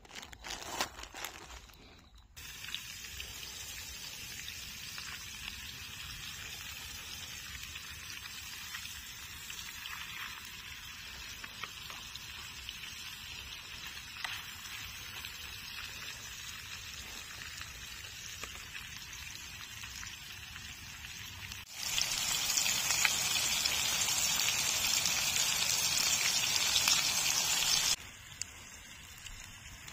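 Masala-coated fish pieces frying in butter in a pan: a steady sizzle, after a few brief knocks in the first two seconds. Near the end the sizzle turns much louder and brighter for about six seconds, then drops back suddenly.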